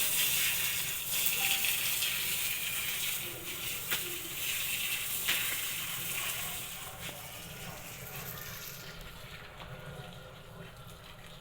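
Water gushing onto sawdust that is being wetted for a mushroom-growing substrate. The steady rushing hiss eases off over the second half and thins out near the end.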